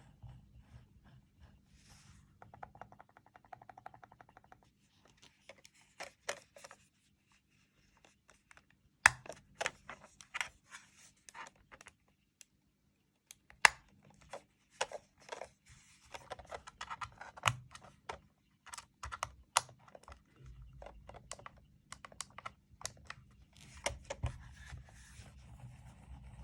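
ProtoArc EM03 mouse clicking: irregular sharp clicks, a few much louder than the rest. A couple of seconds in there is a quick run of small, evenly spaced ticks.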